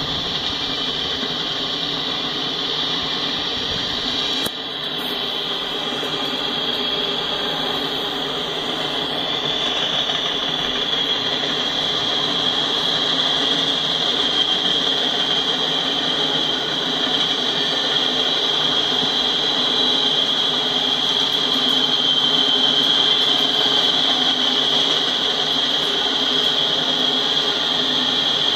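Freight train of loaded coal hopper cars rolling past: a steady grinding, rubbing rumble of wheels on rail with a steady high ring over it, growing somewhat louder after about ten seconds.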